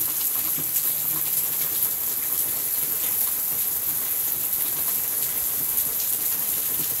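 Heavy rain falling steadily on trees and ground, a dense even hiss throughout.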